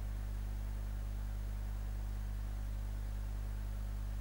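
Steady low electrical hum with a faint hiss underneath.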